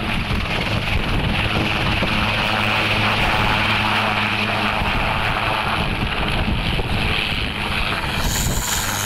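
Helicopter lifting off and flying away: a steady low rotor tone under a high turbine whine, with a rush of wind noise on the microphone near the end.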